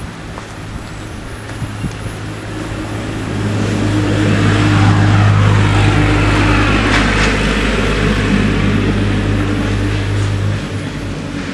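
A heavy motor vehicle passing on the road: its low engine drone swells over a few seconds, is loudest about halfway through, then fades away, the hum dropping out near the end.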